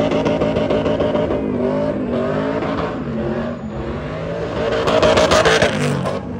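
Car's V8 engine revving, its pitch rising and falling repeatedly, with a louder rough hiss around five seconds in.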